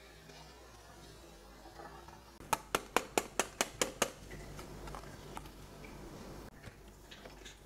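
A kitchen utensil clinking against a dish: about eight quick, evenly spaced strikes, roughly five a second, then a few fainter scattered taps.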